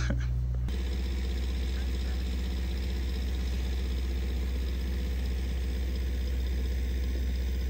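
An engine idling steadily: a low, even drone with no change in speed.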